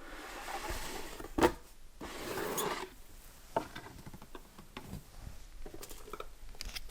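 Rustling and handling of packaging, with a sharp click about a second and a half in, a longer rustle soon after, and scattered small clicks.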